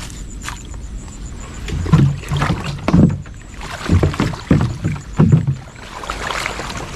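Small boat knocking and water sloshing: a run of about six low thuds between about two and five and a half seconds in.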